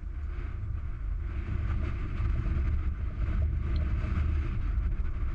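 Wind buffeting the camera microphone: a steady low rumble that rises and falls with the gusts, with a hiss of wind over it.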